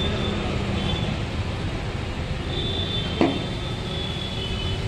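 Compressed air hissing steadily into a car tyre through an air chuck pressed on the valve, with a single sharp knock about three seconds in.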